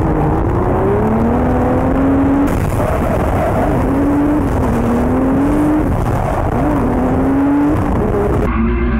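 Twin-turbo Nissan 370Z's 3.7-litre V6 held high in the revs while drifting, its pitch climbing and dipping again and again with the throttle, over a steady rush of noise from the spinning rear tyres. The sound changes abruptly about two and a half seconds in and again near the end.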